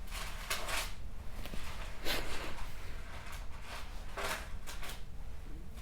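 Pages being flipped, several short papery swishes a second or so apart, over a low room hum.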